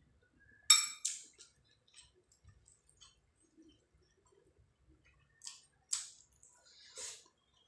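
Eating rice and curry by hand: a sharp ringing clink against the plate just under a second in, a smaller one right after, then wet mouth clicks and smacks three times as a handful goes into the mouth.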